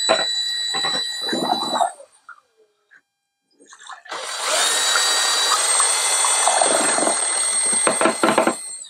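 Power drill spinning a screw-thread mixer attachment in a bucket of water, the motor whining over churning water. It runs for about two seconds and stops, then starts again about four seconds in and runs until near the end, its pitch shifting slightly partway through.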